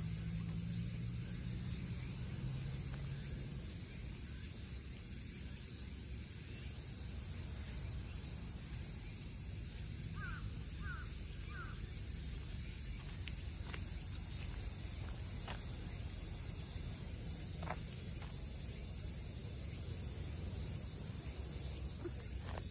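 Steady high-pitched insect chorus over a low rumble, with three short chirps about halfway through and a few faint clicks later on.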